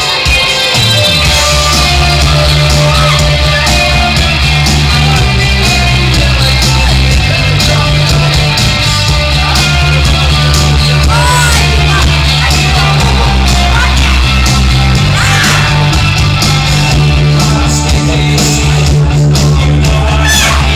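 Loud rock-style backing music with a heavy bass line and singing, played for a burlesque dance routine.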